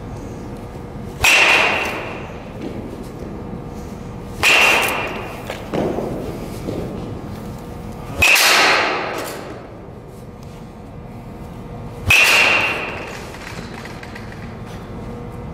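Baseball bat hitting pitched balls four times, a few seconds apart. Each hit is a sharp crack with a brief ringing ping that dies away in the hall.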